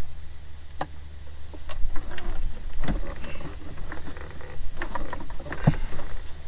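Irregular knocks, clicks and rattles of dash parts and wiring being handled and fitted under a stripped Jeep dashboard, over a steady low hum.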